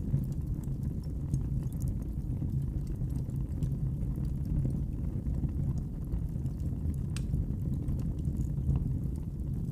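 Wood fire burning in a fireplace: a steady low rumble with scattered small crackles and pops.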